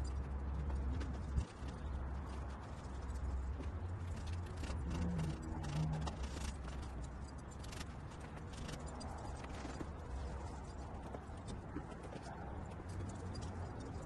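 Light, irregular clicks and knocks of things being handled, over a steady low rumble, with one sharper knock about a second and a half in.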